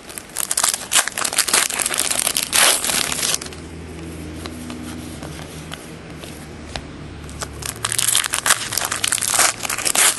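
Plastic crinkling as trading cards and their clear plastic sleeve and wrapper are handled, in two spells: one in the first few seconds and one near the end. A steady low hum sounds between them.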